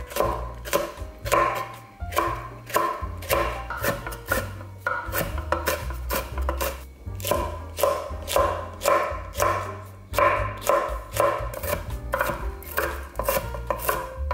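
Kitchen knife chopping fresh red and green chilies on a wooden cutting board: quick, even knocks of the blade on the board, about three a second, over background music.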